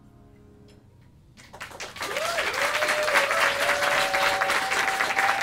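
After a brief hush, audience applause breaks out about a second and a half in and quickly builds to full clapping, with whoops of cheering over it: the ovation at the end of a song.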